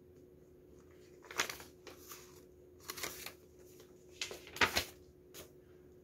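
Paper rustling and crinkling in three short bursts about a second and a half apart, the last the loudest, over a faint steady hum.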